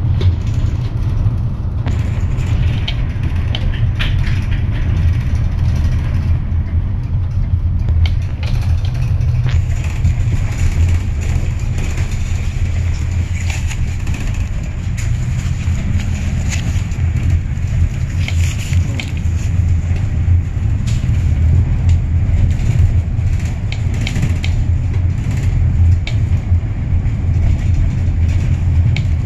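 Steady low rumble of a car in motion, heard from inside the cabin, with scattered small clicks and knocks.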